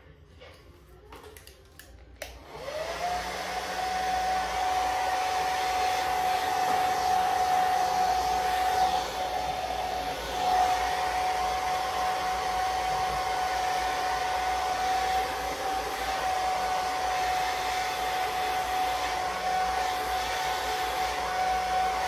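Handheld hair dryer switched on about two seconds in. Its motor whine rises quickly, then holds one steady pitch over a rush of air as it blows on freshly brushed-on lace-wig glue to dry it.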